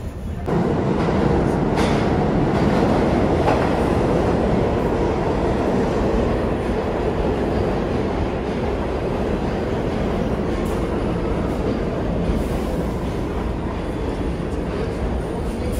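New York City subway train running on the rails: a loud, steady rumble of wheels that swells suddenly about half a second in and then eases slowly, with a few sharp clicks in the first few seconds.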